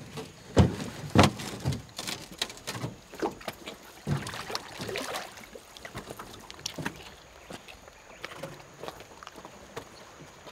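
Footsteps and thumps of someone stepping out of a small boat onto rock and walking across it: three heavy knocks in the first two seconds, then lighter scuffs and taps that fade as the steps move away.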